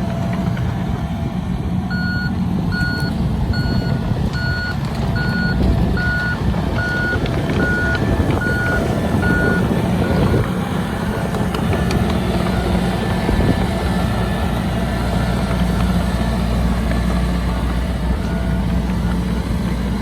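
Heavy earthmoving machine's backup alarm beeping about ten times, a little over once a second, and stopping about halfway through, over the steady low rumble of a diesel engine working.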